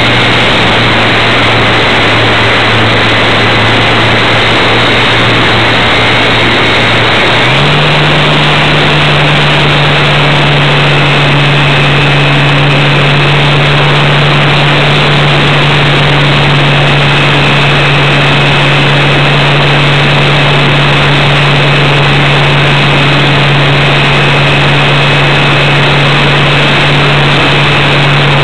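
Radio-controlled Super Cub model airplane's motor and propeller running steadily under a loud rush of air, heard from a camera mounted on the plane. About seven seconds in the motor speeds up, its hum and a high whine both stepping up in pitch, and it then holds at the higher speed.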